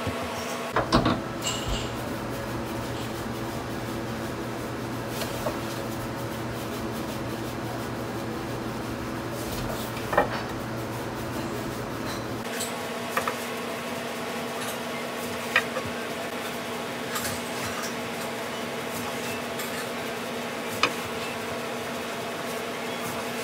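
Hands and a wooden rolling pin working udon dough on a wooden board: a few sharp knocks and clicks, about six, spread out over a steady machine hum. The lowest part of the hum stops about halfway through.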